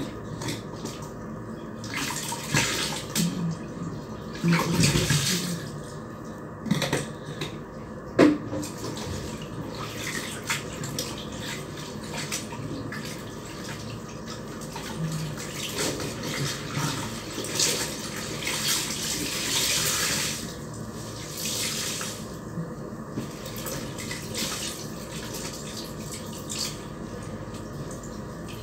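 Clothes being hand-washed in a plastic tub of soapy water: irregular splashing and sloshing as wet fabric is scrubbed, squeezed and lifted out of the water. A few sharp knocks come in the first third, the loudest about eight seconds in.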